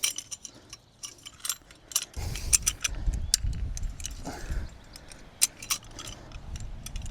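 Fence-wire strainer being worked to tension a fence wire: a run of sharp metallic clicks, irregularly spaced, with a low rumble under them from about two seconds in.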